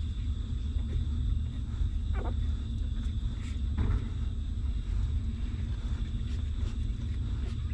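A steady low rumble under a few brief squeaks from newborn puppies nursing, about two and four seconds in.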